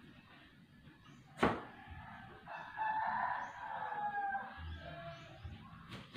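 A sharp knock, then a rooster crowing once in a long call of about two seconds that falls slightly at the end; another sharp knock comes near the end.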